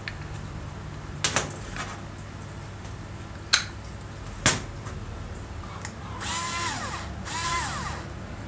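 A few sharp metal clicks as the aluminium gearbox housing halves are pushed together. Then two short whirring runs of a small Bosch cordless electric screwdriver driving a housing screw, each run dropping in pitch as the motor stops.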